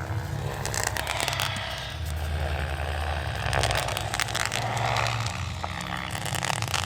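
Radio-controlled model helicopter flying with a steady low rotor and motor hum, under irregular crackling and popping from fireworks.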